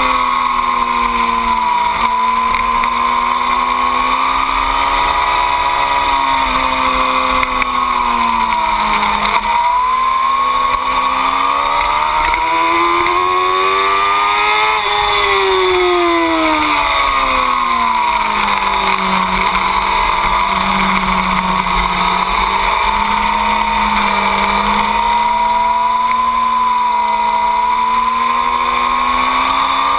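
2008 Yamaha R6's inline-four engine running hard around a track, its pitch climbing under acceleration and dropping when the throttle is rolled off, several times over; the biggest climb and fall come about halfway through. Steady wind rush runs under it.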